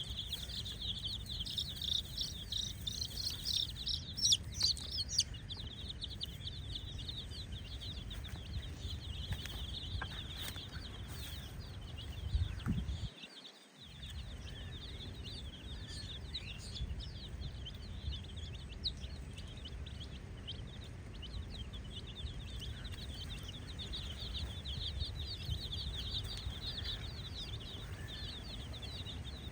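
A brood of baby chicks peeping continuously, many high, rapid peeps overlapping, loudest in the first few seconds, over a low rumble that briefly cuts out about halfway through.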